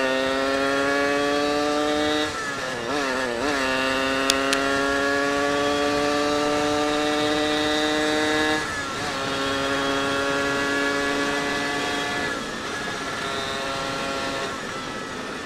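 Suzuki Satria two-stroke motorcycle engine running at speed, its pitch climbing slowly as it pulls, broken a few times by brief dips in revs.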